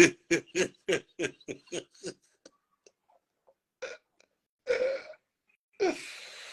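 A man laughing hard in a quick run of short bursts, about four a second, that taper off over two seconds, followed by a few breathy gasps.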